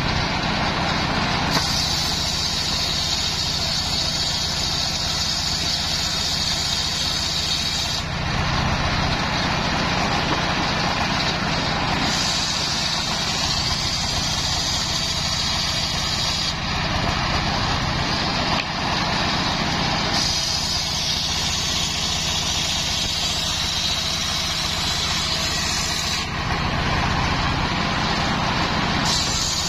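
Homemade circular-saw bench, driven by a stationary engine, ripping a coconut-wood log into planks. The engine runs steadily underneath, while a high hiss from the blade in the wood comes and goes in stretches of a few seconds.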